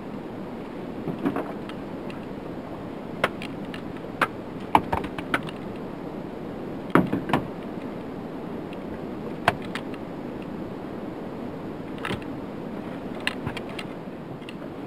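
Scattered sharp knocks and clatters, about a dozen with a cluster near the middle, from gear being handled in a small fishing boat, over a steady rush of wind and water.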